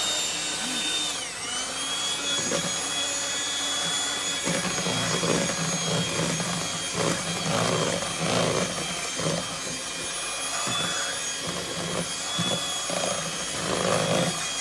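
Electric hand mixer running, beating flour into cake batter. Its motor whine holds steady apart from a brief dip about a second in. From about four seconds in, irregular scraping and knocking sounds join it as the beaters work through the thickening batter.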